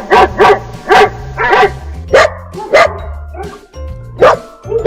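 Dog barking repeatedly, about nine short sharp barks at uneven intervals, with a gap of over a second near the middle, over background music.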